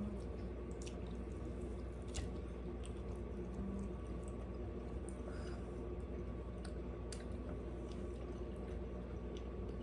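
Close-miked chewing and eating sounds: scattered wet clicks and smacks of a mouth working on food, over a steady low hum.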